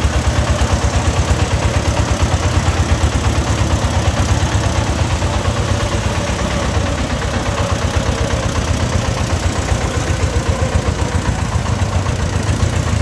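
Single-cylinder diesel engine of a homemade công nông farm truck chugging steadily at low speed, about six beats a second, as it crawls along loaded with bricks.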